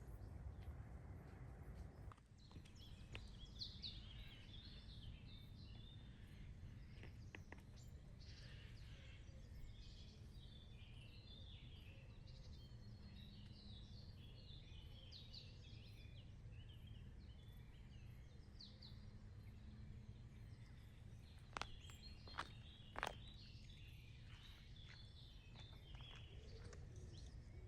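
Small birds chirping faintly over a low, steady outdoor rumble, with three sharp clicks a little past the middle.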